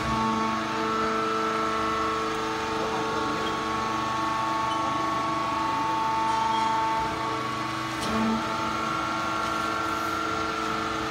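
Horizontal bagging baler for wood chips running: a steady machine hum with several whining tones that shift in pitch every few seconds.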